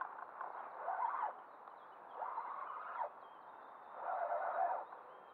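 Spinning reel being cranked in short bursts of about a second, four times, with a whirring gear sound, as a hooked pike is reeled in.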